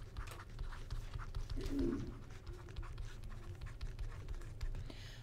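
Stylus tapping and scratching on a tablet screen while handwriting, a string of light irregular clicks over a steady low hum, with a brief faint low murmur about two seconds in.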